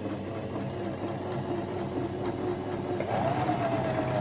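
Janome FD206 sewing machine running steadily, stitching the narrow zigzag of step 1 of a four-step buttonhole. Its motor whine steps up in pitch about three seconds in.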